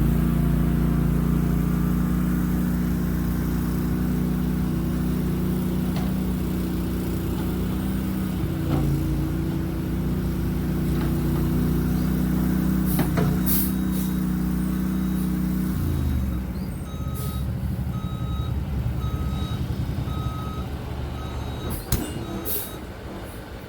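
Boxer 320 mini skid steer's engine running steadily, then dropping to a lower, rougher note about two-thirds of the way through. After the drop come a string of short electronic beeps, roughly one a second, and a few sharp clicks.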